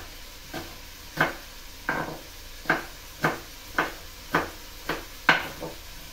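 Kitchen knife chopping a green pepper on a wooden cutting board: about ten sharp knocks of the blade against the board, roughly two a second, stopping shortly before the end.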